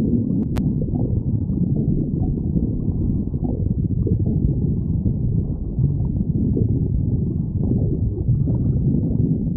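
A woman's stomach growling: a continuous low rumble full of small, irregular gurgles, with a sharp click about half a second in.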